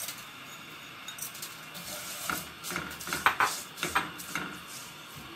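Silicone spatula stirring vermicelli noodles in oil and ghee in a metal pot: a cluster of scrapes and light clatters from about two seconds in to about four and a half.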